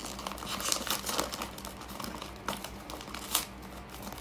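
Crinkly plastic snack bag being handled, a run of quick irregular crackles.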